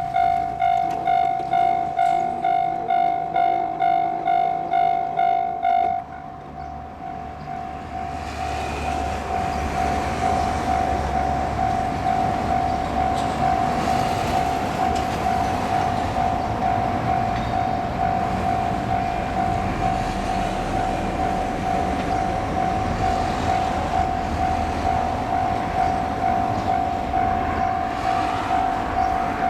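Japanese level-crossing alarm bell ringing steadily at about two strokes a second. About six seconds in, it drops in loudness and loses its brighter ring. A low rumble, typical of an approaching train, builds beneath it from then on.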